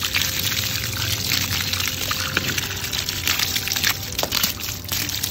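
Water poured over an electric dirt bike's front fender, fork and tyre, splashing and running off the plastic and metal in a steady stream, with small drips and spatters throughout.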